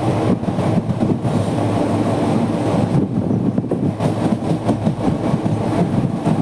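Express passenger train running at speed, heard from on board the coach: loud, steady noise of the wheels on the rails and the moving carriage.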